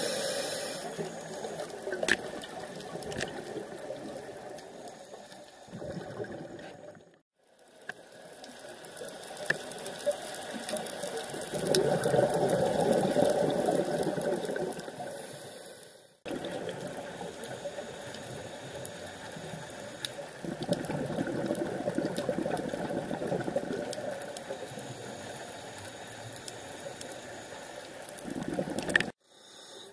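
Underwater sound picked up by a scuba diver's camera: the rush of the diver's exhaled regulator bubbles swelling and fading, with scattered sharp clicks. It drops out abruptly three times, where the clips are cut together.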